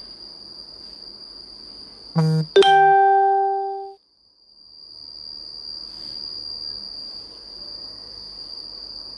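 A loud electronic chime about two seconds in: a short first note, then a sharply struck second note that rings out and fades over about a second and a half, all over a faint, steady, high-pitched whine.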